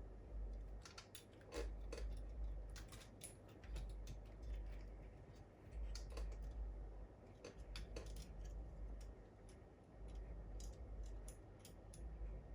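Scattered small clicks and taps of a laptop being taken apart by hand, with dull low thumps of handling in between.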